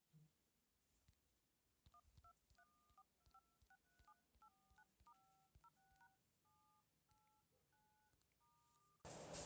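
Very faint touch-tone (DTMF) keypad beeps: a string of short two-note tones, one after another every fraction of a second, as a phone number is dialed.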